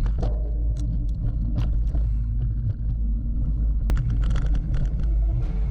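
Mountain bike ridden over a bumpy dirt trail, picked up by a GoPro mounted on the bike: a steady low rumble of wind and tyres on the microphone, with scattered clicks and rattles from the bike jolting over bumps.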